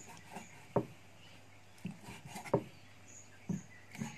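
Large kitchen knife chopping grilled meat on a thick wooden chopping block: about five dull knocks of the blade striking the wood, irregularly spaced, the loudest just past the middle.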